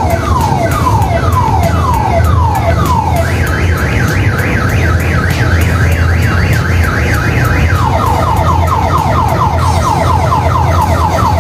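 Electronic alarm siren cycling through its patterns: slow falling sweeps, switching about three seconds in to a quicker, higher up-and-down warble, then about eight seconds in to fast falling sweeps. A steady low hum runs underneath.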